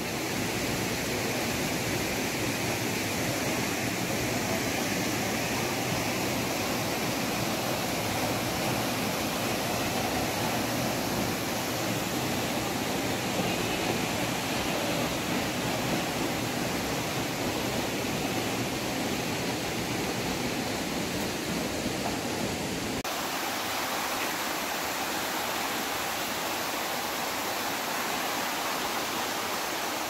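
Steady rush of the Legvtakhevi stream's water running and falling over rocks, an even hiss with no breaks. About two-thirds of the way in the deeper rumble drops out and a lighter hiss continues.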